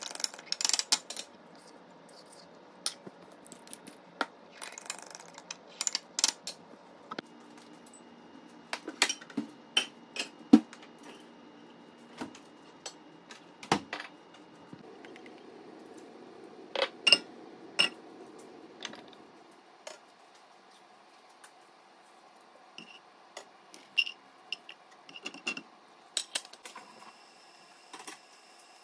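Metal utensils clinking and tapping against a ceramic bowl and cookware at irregular intervals: a fork beating eggs in a bowl at the start, then scattered single knocks and clinks with quiet stretches between. A faint steady hum comes in near the end.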